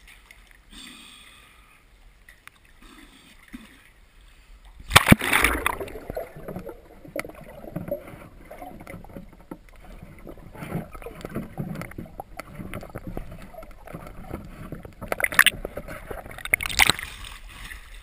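Pond water splashing, sloshing and gurgling with handling noise, with a sudden loud splash about five seconds in and two more near the end.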